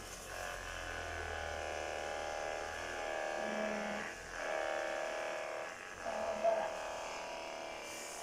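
Handheld percussion massage gun running: a steady electric motor buzz whose pitch sags and recovers a few times as it is worked over the lower back.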